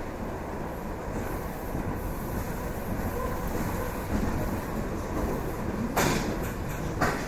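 ЭП2Д electric multiple-unit train running along the line, a steady rumble of wheels on track. Two sharp knocks about a second apart come near the end.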